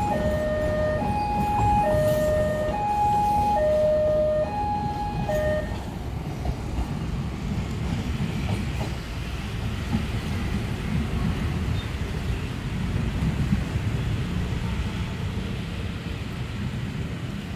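Two-tone electronic warning alarm alternating high and low, a little over one cycle a second, stopping abruptly about five seconds in. After it comes the steady rumble of a train running along the track.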